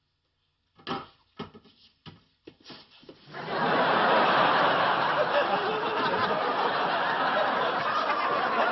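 Studio audience laughing. The laughter swells in about three seconds in and carries on loudly to the end, after a few short, faint clicks or taps.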